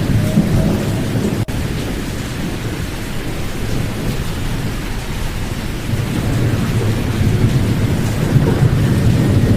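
Pink noise with its high frequencies filtered out: a steady, dense, low rumbling hiss, with a brief dropout about one and a half seconds in.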